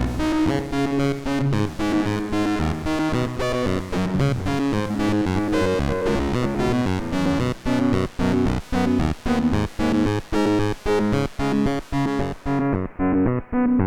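Moog Matriarch analog synthesizer playing layered sustained notes, which turn into a pulsing pattern of short repeated notes at about two a second halfway through. Near the end the tone suddenly turns duller as the highs drop away.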